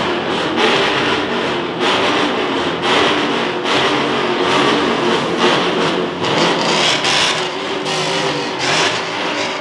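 Dodge muscle cars' engines being revved hard in repeated blips, about one surge a second, in a parking-lot rev battle.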